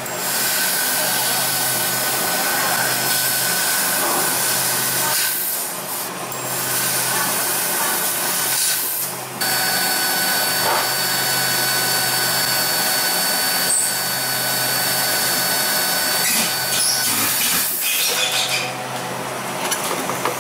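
CNC laser tube-cutting machine cutting a metal tube: a steady hiss from the cutting head over a machine hum and a high whine, with two brief breaks.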